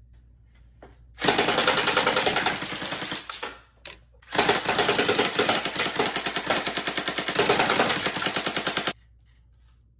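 GameFace Battlemaster electric AK-47 airsoft rifle firing on full auto in two long bursts: a fast, even rattle of shots. The first burst starts about a second in and lasts about two seconds; after a short pause, the second runs about four and a half seconds.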